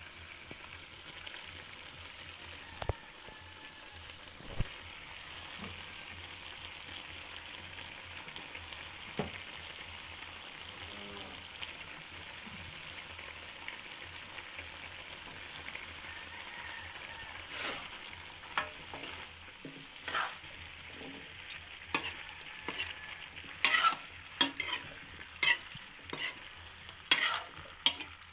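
Chicken and potato curry sizzling in a metal kadhai, with a few single knocks in the first ten seconds. From about 17 seconds in, a metal spoon scrapes and stirs against the pan in repeated strokes, roughly one or two a second.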